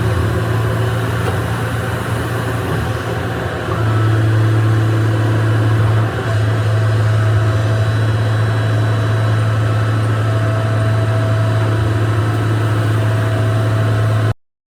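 Excavator's diesel engine running steadily with a deep hum, growing louder about four seconds in and cutting off suddenly near the end.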